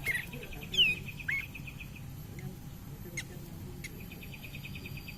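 A kapas tembak songbird singing from a lure recording. There are short whistled notes sliding downward in the first second and a half, then a fast, even chattering trill that starts about four seconds in, with a couple of sharp clicks in between.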